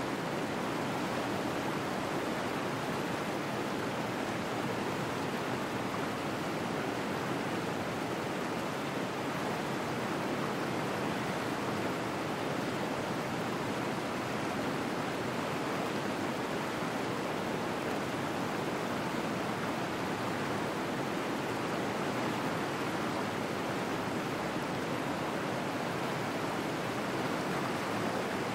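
Waterfall and whitewater rapids rushing steadily, with no single splash or animal call standing out.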